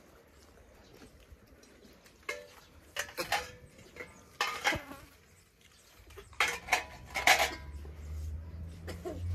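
Stainless steel plates, pot and cups clinking and clattering in several short bursts as people eat. A low hum comes in about six seconds in.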